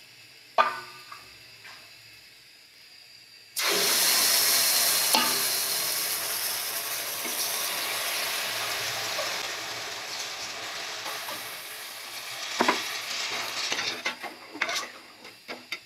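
Water poured into a metal pot of rice fried in hot oil: a sudden loud sizzle about three and a half seconds in that slowly dies away over several seconds. Near the end a spatula scrapes and clinks against the pot as the wet rice is stirred.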